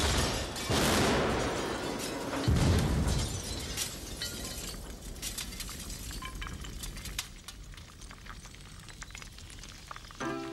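An explosion blowing apart a building, with a second blast about two and a half seconds in, followed by a long clatter of falling debris and crackling that slowly fades.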